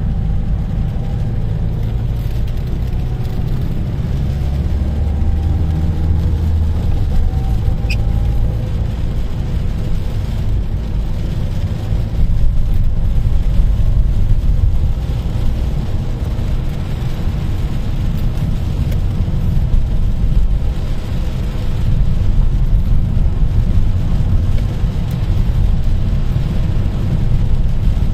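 Car cabin noise while driving in rain: a steady low rumble of the engine and road with a hiss of tyres on the wet surface, a little louder from about twelve seconds in.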